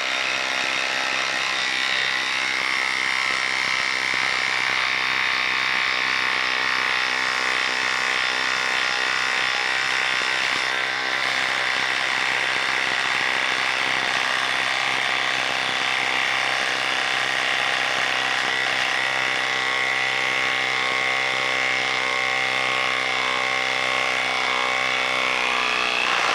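Craftsman 20V cordless impact driver hammering steadily without a break as it drives an 8-inch lag screw into a wooden stump, labouring under the load until the lag stops turning.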